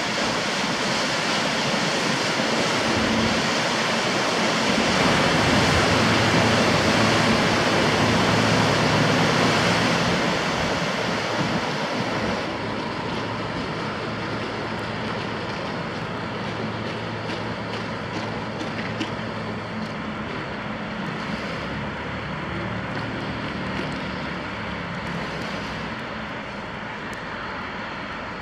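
Motor yacht's engine droning as it passes at speed, with the rush of its bow wave and wake. Loudest several seconds in, then fading steadily as the boat moves away.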